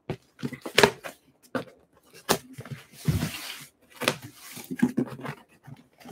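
Packing material in a cardboard shipping box rustling and crinkling as hands open the box and dig through it, with irregular knocks and taps.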